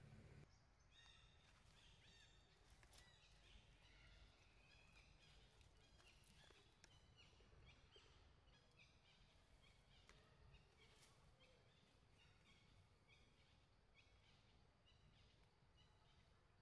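Near silence: faint forest ambience with small, high chirps repeating irregularly throughout.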